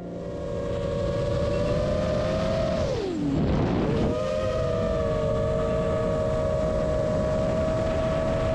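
DJI quadcopter drone's motors and propellers whining steadily over a rushing noise. About three seconds in, the pitch swoops down and climbs straight back up.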